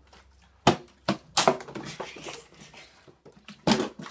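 Plastic water bottles flipped and landing on a hard desktop with sharp knocks: three in quick succession about a second in, then another near the end.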